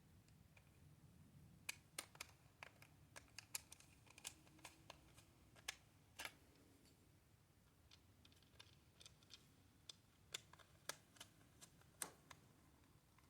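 Faint, irregular small clicks and ticks of a small triangular-bit screwdriver driving screws into a plastic toy's case.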